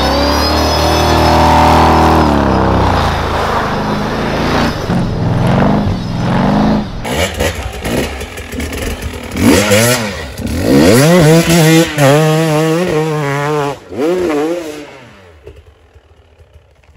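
A Jeep off-road buggy's engine running and revving as it drives through snow, then, from about seven seconds in, an enduro motorcycle's engine revving up and down hard in repeated bursts while climbing a snowy slope. The bike's engine dies away about fifteen seconds in.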